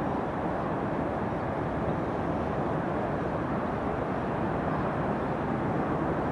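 Jet engines of a Boeing 737 airliner on short final approach, a steady, even rumble with no distinct whine, growing a little louder near the end.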